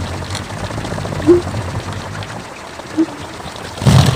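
A large bamboo kolecer, a Sundanese wind propeller with a humming bow, turning in the wind: a steady low hum with a brief higher rising note about every second and a half, and a louder burst of noise near the end.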